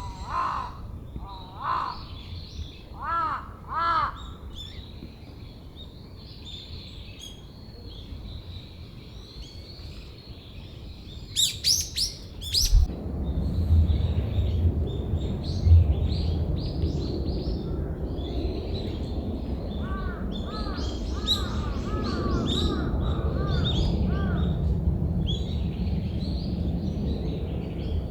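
Crows cawing in short series, a few times early on and again later, with small birds chirping faintly throughout. A few loud, high, sweeping calls from another bird come about halfway through. A low rumbling noise sets in just after them.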